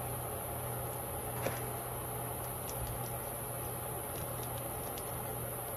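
Steady background hum and hiss, with a few faint clicks and rustles of bark potting media as hands settle an orchid into a small pot, the clearest click about a second and a half in.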